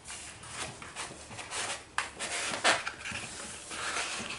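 Hands rummaging in a cardboard advent calendar's drawers: irregular rustling and light taps of cardboard, with two sharper clicks about two seconds in and again shortly after.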